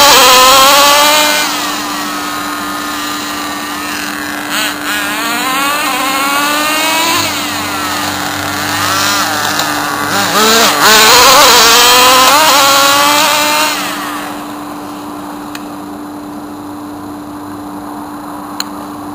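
Small nitro RC car engine running on petrol, revving up and down repeatedly as the car drives; loudest at the start and again about ten to thirteen seconds in, then dropping to a quieter steady sound about fourteen seconds in.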